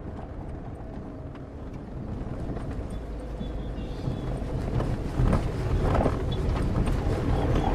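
Low rumbling background noise that grows steadily louder, with scattered light clicks and a few soft knocks.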